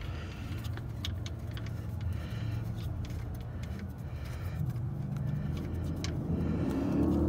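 Scattered small metallic clicks as a Pontiac G6's oil drain plug is spun out of the oil pan by hand, over a steady low hum. A louder, rising sound comes in near the end.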